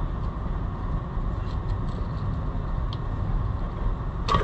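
Small clicks from the recoil starter of a Homelite Super XL chainsaw as its rope pulley and spring are turned by hand, with a sharper click near the end, over a steady low rumble.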